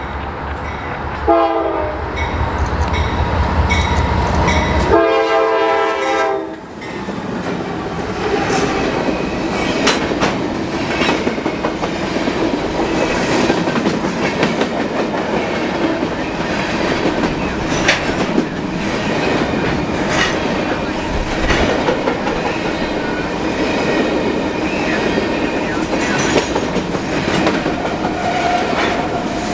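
Freight train passing close by. The locomotive horn gives a short blast, then a longer one about five seconds in, over the low rumble of the diesel engines. After that the cars roll by with a steady clickety-clack and clattering wheels, an empty grain train of hopper cars.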